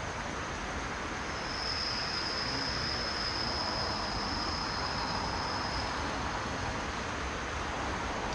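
DD51 diesel-hydraulic locomotive hauling passenger coaches, approaching with a steady rumble that grows a little louder. A thin high-pitched squeal sounds from about a second and a half in until about six seconds in.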